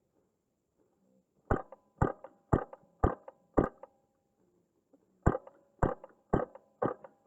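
Wolverine MTW high-pressure-air airsoft rifle firing single shots in two strings of about five, roughly two shots a second, with a short pause between the strings.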